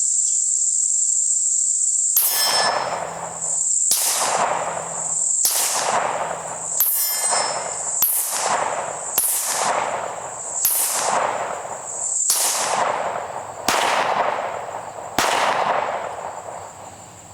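9mm Smith & Wesson Metal Carry Comp pistol firing a slow string of about a dozen shots, roughly one every second or so, each with a trailing echo. Steady high-pitched insect buzzing runs underneath.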